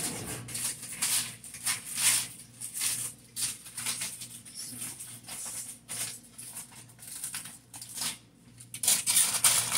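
Aluminium foil rustling and crinkling in quick, irregular bursts as it is handled and pressed into place as a liner for an air fryer basket.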